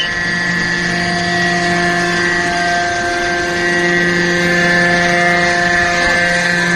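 Hydraulic scrap metal baler running, a steady machine whine made of several held tones.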